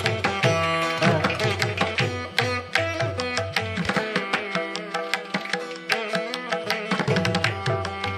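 South Asian-style music with quick hand-drum strokes under a melodic string line, playing at a steady level.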